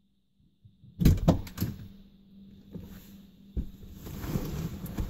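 2008 Lincoln Town Car's driver's door opening about a second in, with a quick cluster of sharp knocks from the latch and the door. Then rustling as someone gets into the driver's seat, with another knock about three and a half seconds in.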